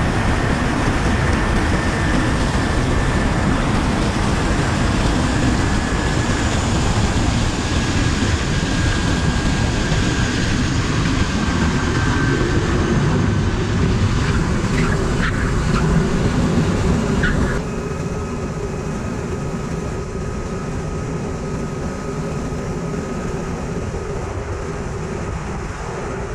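Air Tractor crop duster's turboprop engine and propeller with heavy wind rush, heard from a wing-mounted camera as the plane comes in, lands and rolls out; a faint high whine slowly falls in pitch. A few sharp knocks come a little past the middle, then the noise drops suddenly about 17 seconds in, leaving a quieter engine with a steady high whine.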